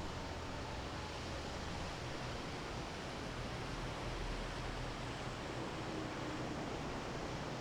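Steady outdoor noise of wind and water, with a low hum underneath.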